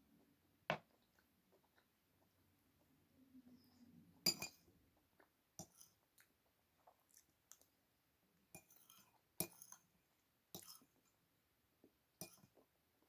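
Scattered light clinks and clicks of eating utensils against dishes during a meal, about a dozen short ones, the loudest about four seconds in.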